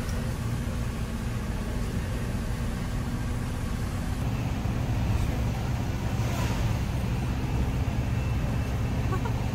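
Tour jeep's engine running steadily, heard from inside the vehicle, with a steady hiss over it.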